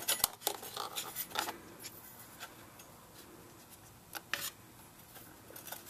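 Light metallic clicks and scraping as a new oxygen sensor is turned by hand into its threaded bung, its wire lead rubbing against the parts around it. These sounds fall mostly in the first second and a half, with one more click a little past four seconds.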